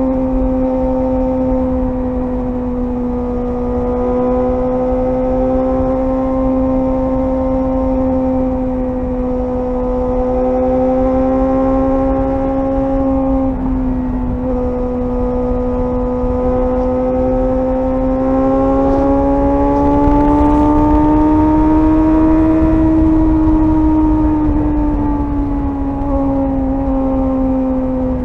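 Suzuki GSR 600's inline-four engine running at a steady cruise while riding, its note holding level, briefly interrupted about halfway, then rising gently toward the last third before easing back. Low wind rumble sits underneath.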